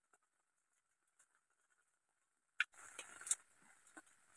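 Handling of a plastic sachet of instant ginger drink: quiet at first, then about two and a half seconds in a sharp click followed by about a second of crinkling as the packet is opened and tipped over a steel cup, with a few light ticks near the end.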